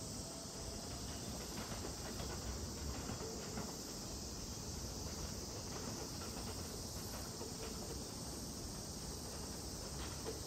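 Steady high insect chirring, with a faint low rumble and scattered light clicks underneath as a Keisei 3700-series electric train moves away over the yard points.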